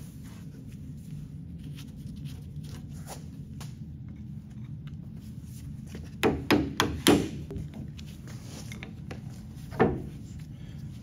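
Sharp metal knocks from hand work on a two-post car lift's hydraulic cylinder clamped in a bench vise, as a flat screwdriver works at its end gland. Four or five knocks come close together about six seconds in and one more near the end, over a low steady hum.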